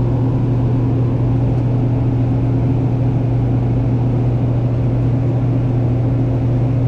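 Walk-in cooler's fan motors running: a steady low hum over constant air noise, with no change in pitch or level.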